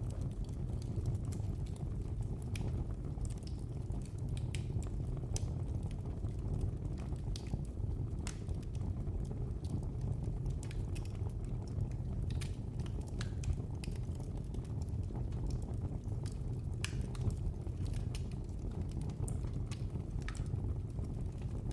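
Wood fire burning in a fireplace: a steady low rumble of flames with frequent irregular sharp crackles and pops.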